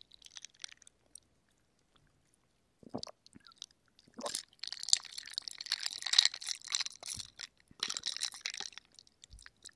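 Iced cherry ade sipped through a straw close to the microphone: a long slurping sip and then a shorter one. A few faint mouth clicks come before them.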